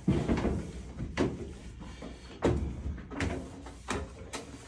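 A series of about six irregular dull knocks and bumps, the loudest at the start and about two and a half seconds in.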